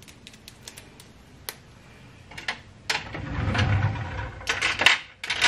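Small clicks and light metallic taps of hoop earrings being handled and fastened. A muffled rustle of handling close by comes in the middle, and a cluster of sharper clicks comes near the end.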